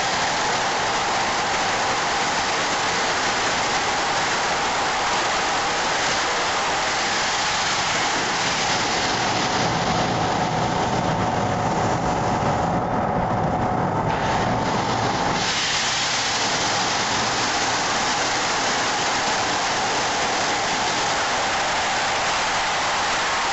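Sandblaster nozzle blasting crushed glass media against a wheel rim: a loud, steady hiss of air and grit. Its higher part thins for a few seconds just past the middle, then comes back full.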